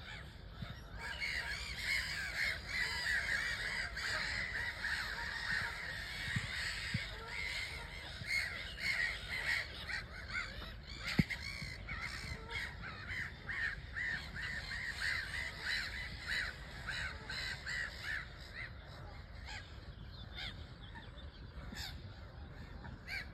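A flock of birds calling, many short calls overlapping without a break. A single sharp click about halfway through.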